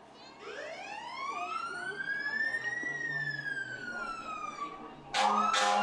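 Fire truck siren winding up once and falling away again. Near the end a much louder horn cuts in with a few short blasts.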